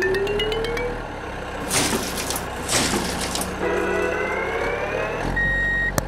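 Construction-vehicle sound effects for the toy loader and dump truck. A rising mechanical whine with fast rising ticks fades out about a second in. Two bursts of hissing follow around two and three seconds in, then another rising whine, and a steady high beep near the end.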